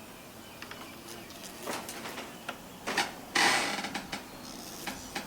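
A jack being let back down under a shed wall: scattered light mechanical clicks and knocks, with a short scraping rush about three and a half seconds in.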